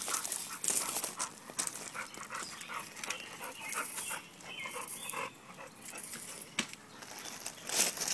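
A dog whining in short high-pitched notes, with a sharp knock near the end.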